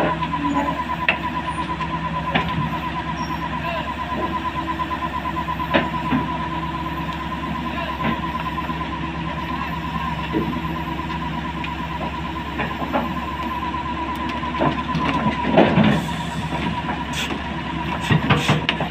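Cat 320 hydraulic excavator's diesel engine running steadily as the machine tracks down off a lowboy trailer, with a rapidly pulsing high-pitched beep from its travel alarm. A few sudden clanks of the steel tracks on the trailer, the loudest about three-quarters of the way in.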